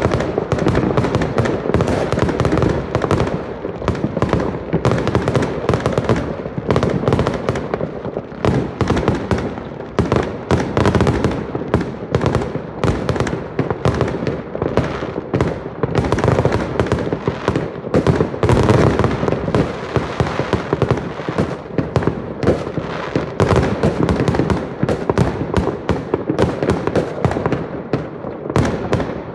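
Many fireworks going off at once from several places, a dense barrage of sharp bangs that runs without a pause.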